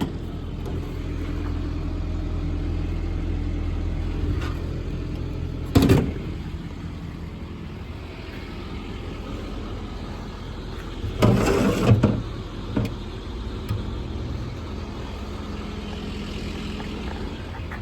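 Ford 6.7 Power Stroke diesel idling steadily, with a sharp knock about six seconds in and a short burst of knocks and clatter around eleven to twelve seconds in.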